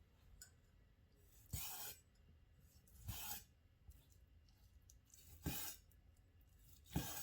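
Knife slicing through cooked chicken breast on a cutting board: four short, faint scraping strokes about a second and a half apart.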